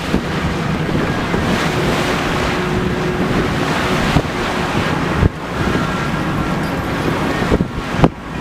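Wind buffeting the microphone over the rush of waves and water on a sailing yacht under way at sea, with two sharp knocks, about five and eight seconds in.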